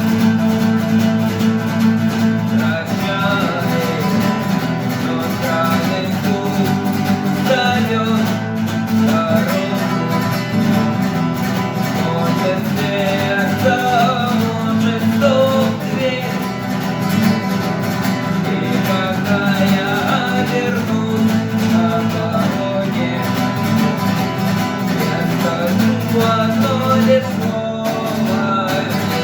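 Acoustic guitar strumming chords with a melody line over them that moves up and down.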